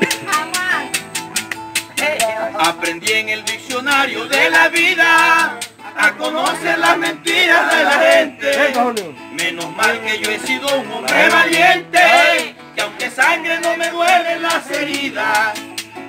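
Live acoustic trio playing a vallenato paseo: two acoustic guitars and a steady rhythm, under a man singing in phrases with short breaks between them.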